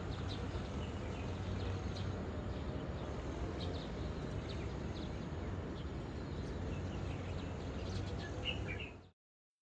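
Steady outdoor background noise, a low rumble of distant road traffic, with a few faint bird chirps; it cuts off suddenly about nine seconds in.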